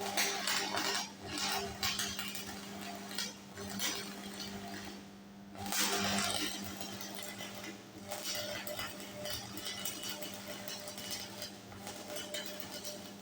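Chipping hammer knocking slag off a 6013 stick weld: irregular metallic clinks and scraping, over a steady low hum.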